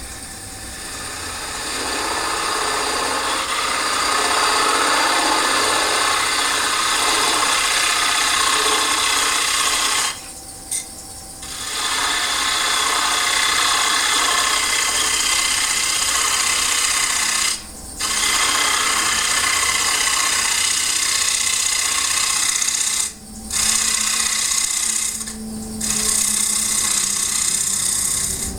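Turning tool cutting a spinning wooden bowl blank on a wood lathe: a continuous shearing hiss, broken by brief pauses when the tool comes off the wood, about ten seconds in and three more times near the end.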